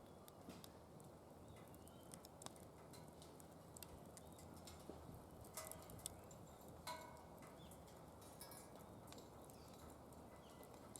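Faint crackling of a wood fire burning in a DOD Mecha-Moe Fire steel fire pit: scattered small pops and crackles over a low, steady hiss.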